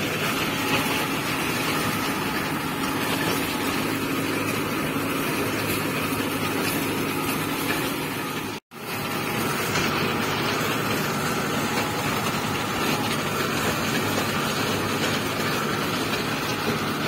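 New Holland TL95 tractor's diesel engine running steadily, heard close up, while the tractor works the field with a seed drill. The sound cuts out abruptly for a moment about halfway through, then carries on unchanged.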